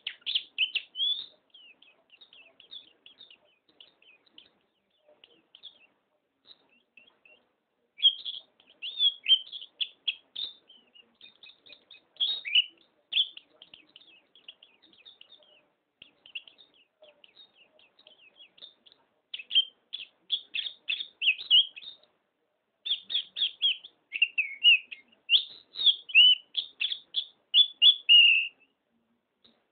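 White-eye (pleci) songbird singing: runs of rapid, high chirping notes, some lasting a second or two and the longest several seconds, with softer twittering in between.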